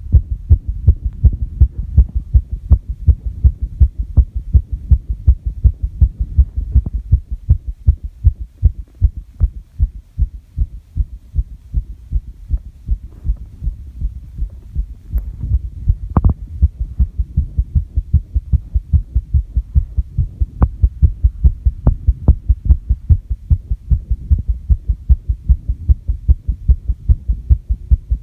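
Human heartbeat recorded at the chest: a fast, regular train of low thuds, the heart raised by sets of squats and jumps.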